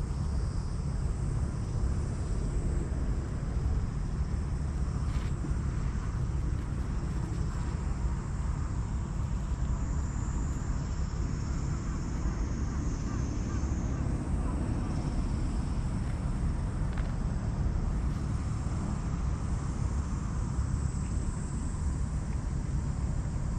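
Steady low rumble of wind on the microphone, with a faint high insect buzz running over it.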